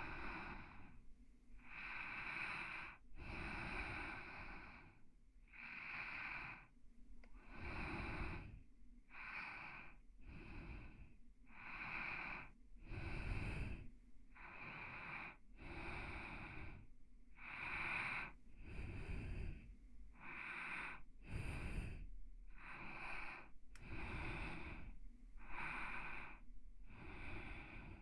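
A person breathing softly and evenly, very close to the microphone, in separate breaths about one a second, for ASMR sleep audio.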